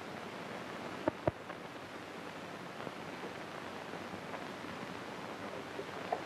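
Steady hiss of an early sound-film soundtrack, with two short knocks about a second in.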